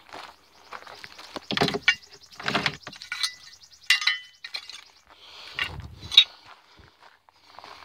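Scrap metal being handled: clatter and rustling as a flat metal piece is laid into a plastic tub full of tangled wire, with a couple of short metallic clinks about halfway through, and footsteps on gravel.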